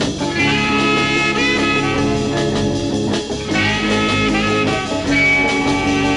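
Background music: an instrumental tune in a swing style.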